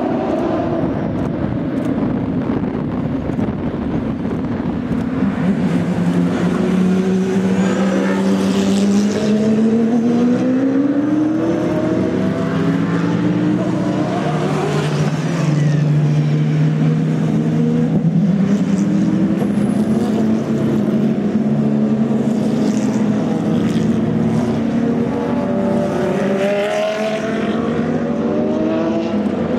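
Loud open-exhaust racing-car engines under hard acceleration, several cars in turn, each engine note climbing in pitch as it pulls away, over a steady drone from other engines.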